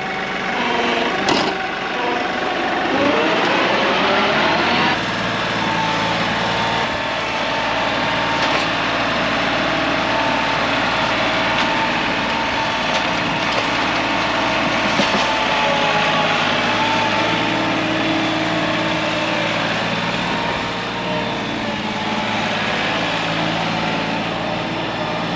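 Tractor engine revving up over the first few seconds, then running steadily at a raised throttle.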